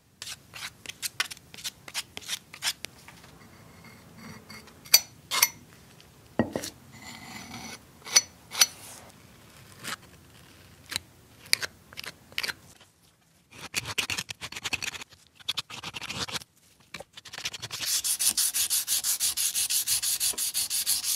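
A metal putty knife scraping and clicking as it spreads filler over a rusted cast-metal ashtray. Near the end comes a loud, fast, even run of hand-sanding strokes on the ashtray.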